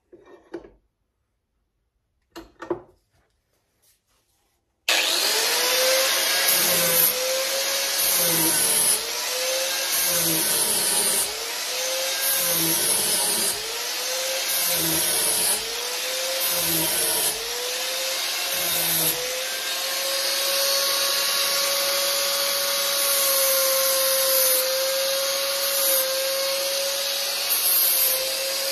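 After a few faint knocks, an angle grinder runs against a wooden axe handle, shaping the wood. Its pitch dips about every two seconds as each pass loads the motor, then holds steady for the last third.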